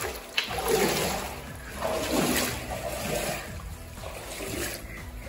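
Water splashing and trickling as a dip net is worked through water weeds in a shallow stream.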